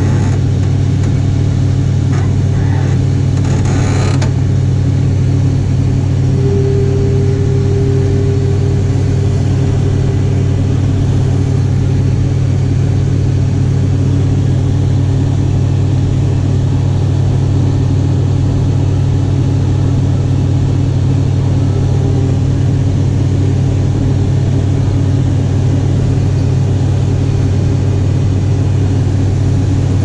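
Combine harvester running steadily while its unloading auger empties shelled corn into a grain cart, a constant low engine drone with a short clatter about four seconds in.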